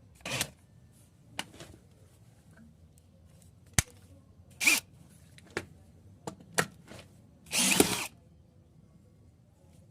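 DeWalt DCD7781 cordless drill run in a series of short trigger pulls, each a brief spin-up and stop, with a sharp click between them. The longest run comes near the end and lasts about half a second.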